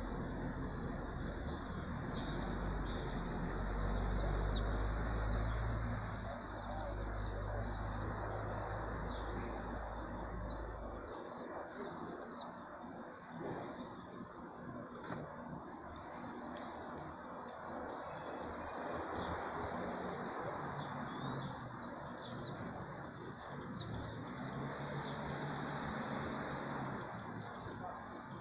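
Many birds chirping and calling at once in a morning chorus, a dense stream of short high notes. A low steady hum sits under it for the first ten seconds or so and then stops.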